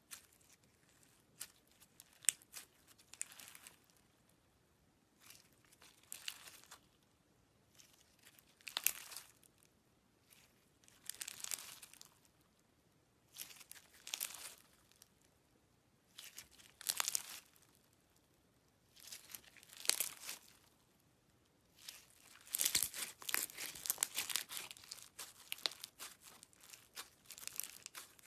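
Slime packed with small pearl beads being squeezed and stretched by hand, the beads rubbing and clicking against each other in bursts of many small clicks. The squeezes come about every two to three seconds and run almost together near the end.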